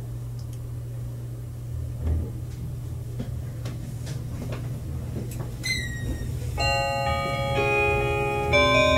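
Meitetsu limited express train running, a steady low rumble inside the car. About six seconds in, the onboard announcement chime starts over the car's speakers: a short falling chime, then a tinkling multi-note melody, the signal that the automatic next-stop announcement is coming.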